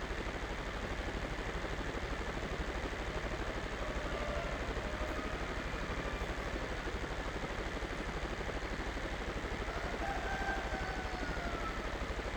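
Small homemade electric fan running: a steady whir from its motor with a fast, even flutter from the spinning blades.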